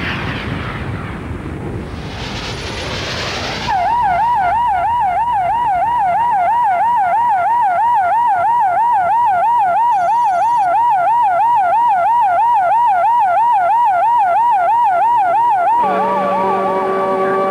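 Emergency vehicle siren in a fast yelp, its pitch swinging up and down about three times a second. It cuts in abruptly a few seconds in after a rushing noise, and near the end gives way to a steady multi-tone sound.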